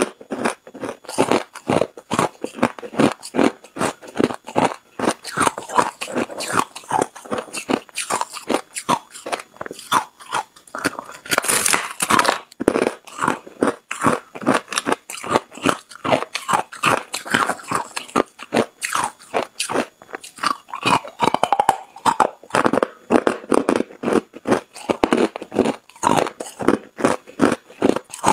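Hard ice chunks crunching as they are bitten and chewed: a dense, continuous run of sharp cracks, several a second.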